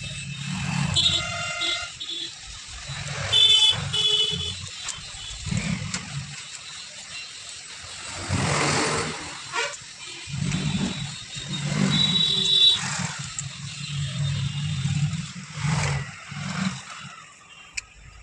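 Passing road traffic with vehicle horns honking several times over a low engine rumble.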